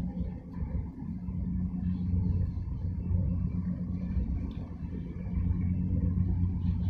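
Low, steady engine rumble with a constant deep hum from the ships moving through the harbour entrance: the large container ship's diesel, with the pilot boat running alongside.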